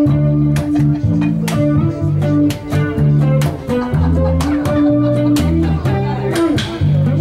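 Live instrumental break of a slow ballad: electric bass guitar holding low notes under a picked melody on a small-bodied plucked string instrument.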